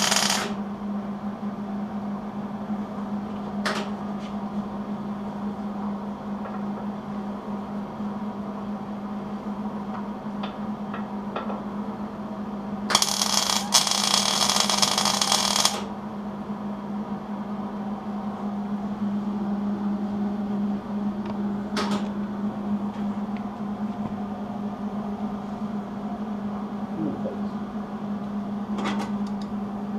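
Wire-feed (MIG) welder tack-welding steel angle iron: the arc crackles and hisses in a burst of about three seconds near the middle, and another weld cuts off just as the sound begins. A steady low hum runs underneath, with a few sharp clicks in between.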